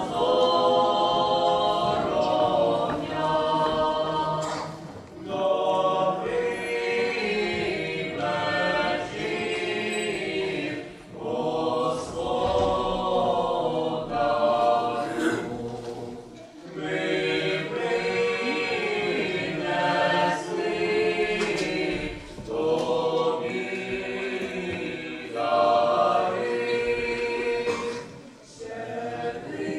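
Choir singing unaccompanied, in phrases separated by short breaths about every five to six seconds.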